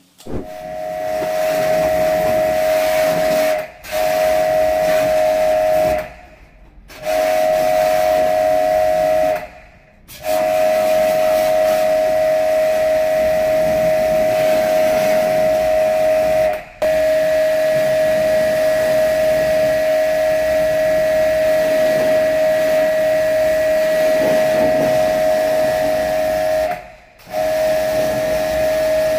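Electric pressure washer running with a steady high whine and the hiss of its water jet spraying a split AC's plastic grille. It stops for a moment five times and picks straight back up.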